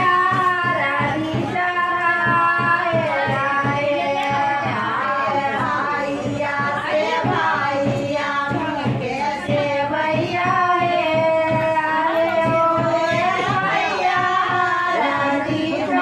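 A high female voice singing a song with instrumental backing.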